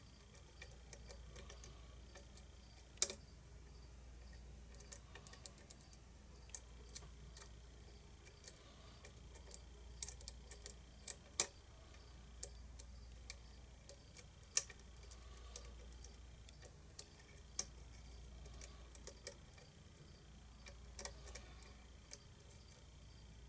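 Irregular small metallic clicks and taps of a lock pick and tension wrench working the pins inside a pin-tumbler challenge lock, as a stubborn pin is prodded and will not lift high enough to set. A few sharper clicks stand out among the softer ones.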